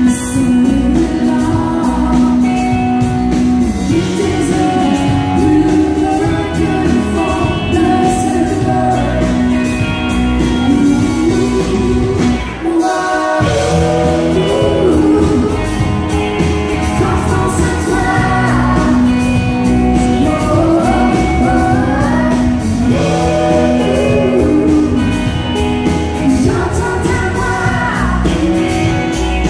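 Live country band playing: singing over acoustic and electric guitars and drums. The band stops for a beat about 13 seconds in, then comes back in.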